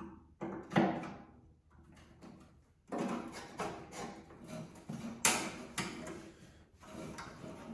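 Flathead screwdriver prying at the worn skid shoe on a single-stage snowblower's housing, where it is pinched over from repeated hits. A few sharp clicks come first, then from about three seconds in a run of scraping and knocking, loudest about five seconds in.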